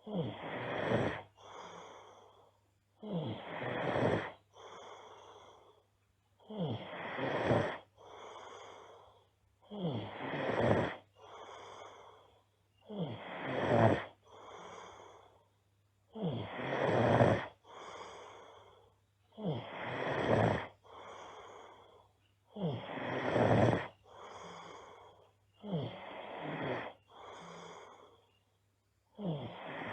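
A girl snoring loudly in her sleep, in a slow regular rhythm of about one breath cycle every three and a half seconds. Each cycle is a loud rasping snore followed by a softer breath sound.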